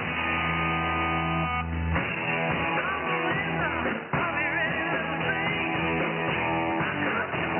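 Rock music with electric guitar, received off a shortwave pirate broadcast in upper sideband. A held guitar chord gives way about two seconds in to a busier passage.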